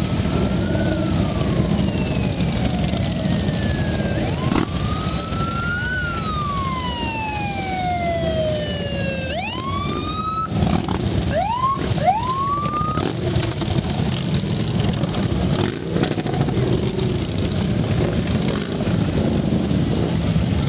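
Emergency vehicle siren wailing in slow rising and falling sweeps, then giving three quick rising whoops about halfway through, over a steady rumble of engines.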